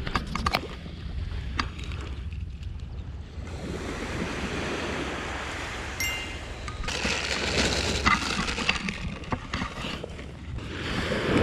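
Waves washing up a sandy beach, with wind noise, and several sharp clicks and rustles from hands handling fishing tackle close to the microphone, bunched right at the start and a few more later.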